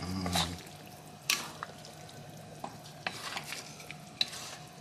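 Wooden spatula stirring cassava leaves through coconut-milk gravy in a metal wok, with scattered knocks and scrapes against the pan, the loudest about a second in.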